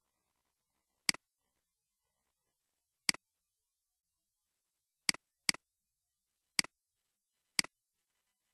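Computer mouse clicking six times, each click a sharp press and release, with two clicks close together around the middle and silence between.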